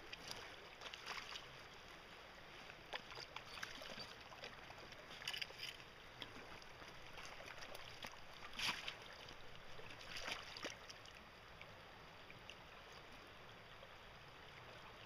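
Creek water running steadily as a faint even rush, broken by a few short sharp sounds about five, eight and a half and ten seconds in.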